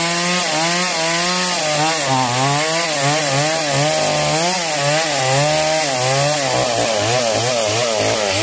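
Stihl two-stroke chainsaw cutting through a large log, its engine pitch swinging up and down about twice a second under load, and swinging faster near the end.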